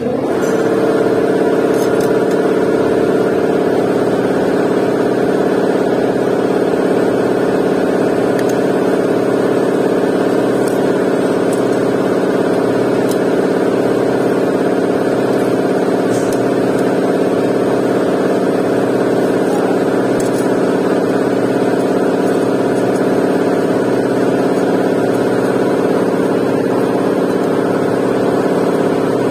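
An engine running steadily at one constant speed. It comes in suddenly at the start and holds an even pitch throughout.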